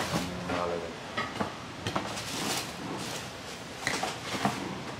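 A cardboard shoebox being handled and opened: irregular knocks, scrapes and rustles of the lid and packing.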